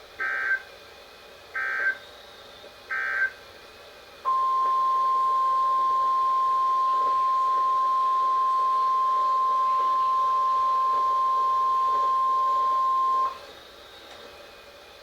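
NOAA Weather Radio alert signal: three short bursts of SAME digital header data, then the steady 1050 Hz warning alarm tone for about nine seconds, cutting off suddenly. It marks the start of a new warning broadcast.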